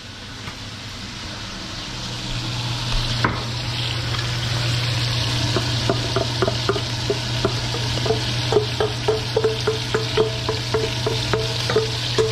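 Diced onion sizzling as it fries in a pot, getting louder over the first few seconds. From about five seconds in, a utensil stirs it, scraping and clicking against the pot about twice a second.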